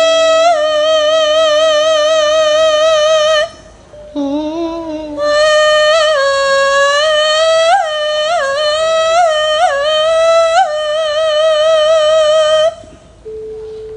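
A sinden (female Javanese singer) sings a Javanese song in long drawn-out notes. She holds one note with wide vibrato, breaks off for about a second, then sings a slow ornamented phrase with quick upward flicks in pitch before trailing off near the end. A faint steady instrumental note lies under the opening seconds.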